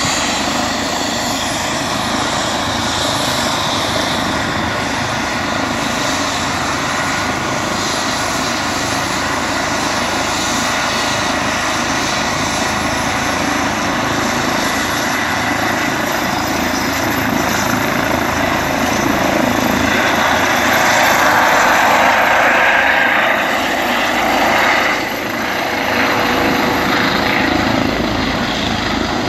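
Air ambulance helicopter running on the ground with its rotor turning, a steady rotor and turbine noise over a thin high whine that slowly rises in pitch. It is spooling up for take-off, and it grows louder about two-thirds of the way through.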